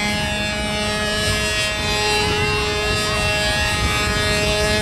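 Small engine of a radio-controlled model airplane running at steady throttle, holding one even pitch.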